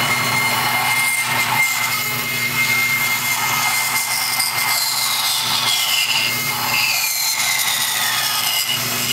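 Bandsaw ripping lengthwise through a thick mahogany board: steady motor hum under the blade's cutting noise, with a few falling whines in the middle of the cut.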